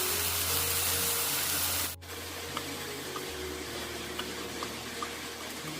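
Food sizzling as it fries in a pan, a steady hiss that drops abruptly to a quieter sizzle with small crackles about two seconds in.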